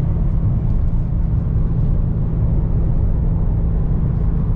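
Car on the move: a steady, loud low rumble of engine and road noise, with no sharp events.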